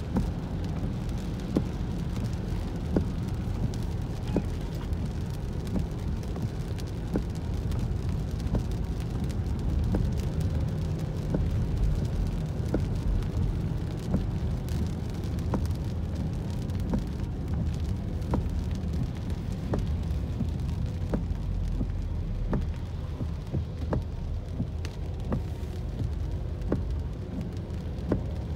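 Inside a moving car in rain: a steady low rumble of the car on wet road, with raindrops tapping on the windshield and roof at irregular moments.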